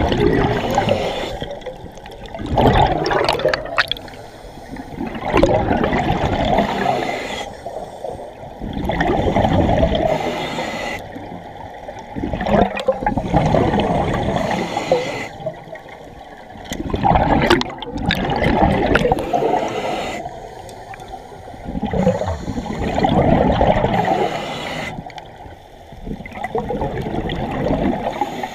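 Scuba breathing heard underwater: a regulator's exhalations send out gurgling rushes of bubbles, one burst every three to four seconds, with quieter gaps between breaths.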